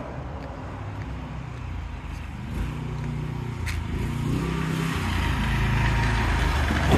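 Homemade go-kart's small engine revving up and easing off several times, getting steadily louder as the kart comes closer.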